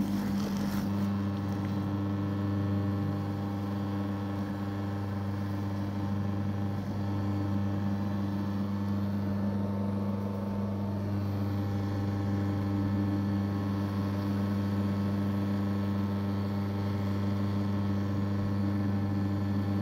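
Electric mochi-making machine's motor running with a steady hum as its paddle turns and kneads steamed glutinous rice into mochi.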